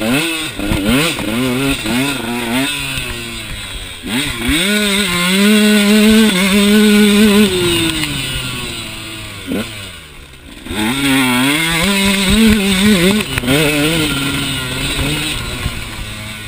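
2013 KTM 150 XC two-stroke dirt bike engine under hard riding, revving up and down through the gears. It is held at high revs for a couple of seconds in the middle, drops off briefly about ten seconds in, then climbs again.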